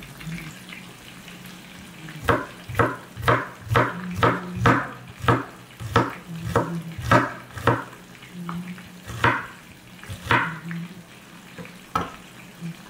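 Chef's knife chopping an onion on a wooden cutting board: a run of sharp knocks about two a second, then a few slower cuts near the end.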